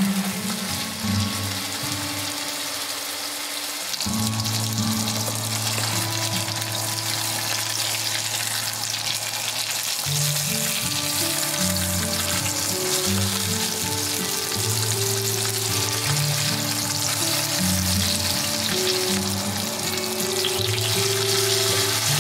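Ground-meat hamburg steak patties frying in oil in a frying pan, giving a steady sizzle, with soft background music underneath.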